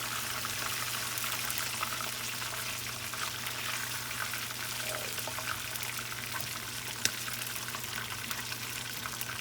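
Breaded bass fillets frying in hot canola oil in a pan: a steady sizzle with scattered small crackles and pops. A low steady hum runs underneath.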